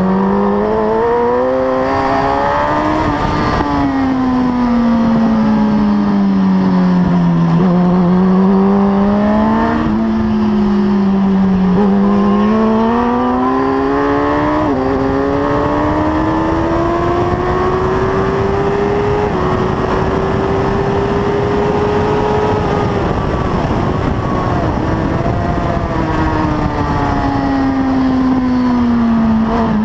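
1000cc Suzuki superbike engine at racing speed, heard from an onboard camera. The revs rise and fall over and over through corners, climb for a long stretch in the middle with two quick drops at upshifts, then fall away steadily near the end as it slows.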